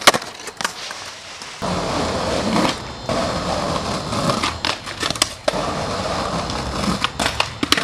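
Skateboard sounds: a sharp clack of the board as a trick is popped on concrete. About a second and a half in, the sound cuts to a steady rumble of rolling and scraping, with sharp clacks of the board on the rail and stairs, several of them close together near the end.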